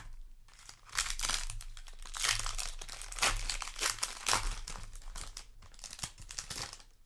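Plastic foil booster-pack wrapper crinkling as it is handled, irregular crackling from about a second in until near the end.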